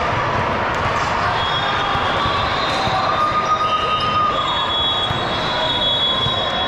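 Basketball game in a gym: the ball bouncing on the hardwood amid a steady din of players and spectators, with high sneaker squeaks now and then.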